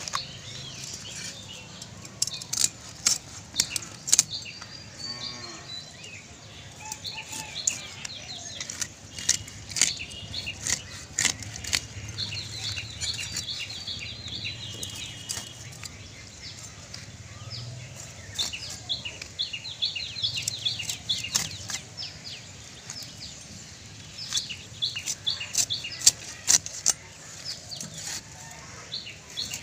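Large silver carp being cut into pieces on a bonti, a fixed upright curved blade: many sharp crunches and wet clicks as flesh, scales and bone are pushed through the blade. Small birds chirp in several short runs in between.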